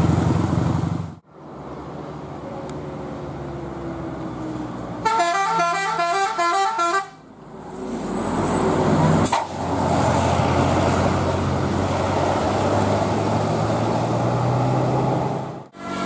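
Tour bus telolet horn playing a quick stepping melody for about two seconds, roughly midway. Around it, large bus diesel engines run steadily with road noise as buses pass, broken by several abrupt cuts.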